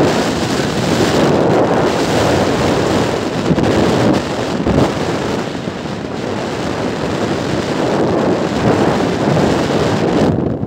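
Steady wind rush buffeting the phone's microphone on a motorcycle moving at road speed, with the ride's engine and road noise mixed in.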